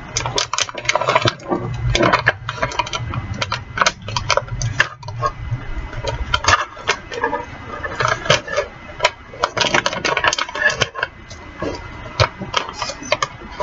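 Plastic frozen-food pouch crinkling, with irregular snips and clicks, as it is handled and worked at with scissors that fail to cut it open.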